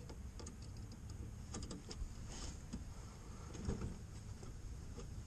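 Scattered light clicks and scrapes of small parts being handled and pushed into place in a car's headlight housing, over a low steady rumble.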